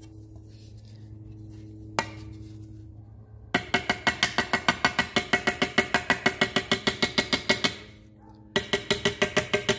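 Small hammer tapping out dents in a 1960 Impala's aluminum seat molding, with light metallic ringing taps. There is a single tap about two seconds in, then a quick run of about seven taps a second for some four seconds, a short pause, and another run near the end. A low steady hum lies under the quieter opening.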